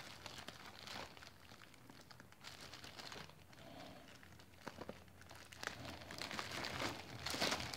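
Thin plastic bag crinkling faintly as fingers work at its tied knot, in scattered small crackles, getting louder near the end as the bag starts to come open.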